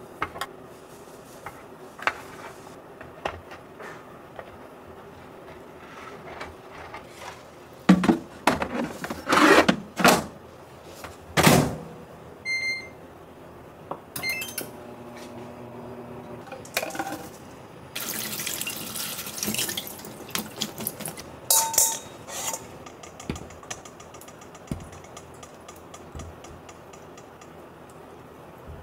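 Kitchen sounds: a few loud knocks and clatters of cookware, then short electronic beeps as a countertop mini oven's control dial is set. Later a faucet runs for about two seconds.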